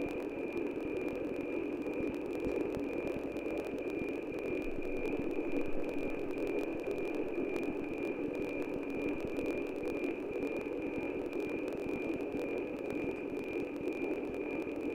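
NOAA-18 weather satellite's APT image signal received on 137.9125 MHz and played as radio audio: a steady high tone pulsing regularly, under loud static hiss.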